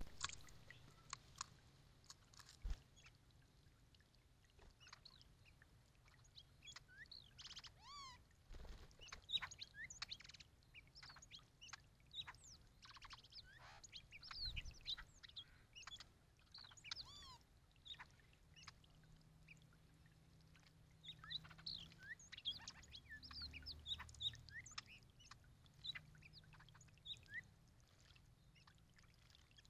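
Male hooded orioles singing and calling in clusters of short, quick whistled and chattering notes. Light splashing water from the birdbath fountain and the bathing birds runs underneath.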